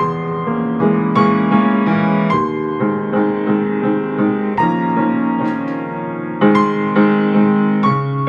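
Piano playing a slow, gentle piece, with new notes and chords struck every half second or so over held harmonies.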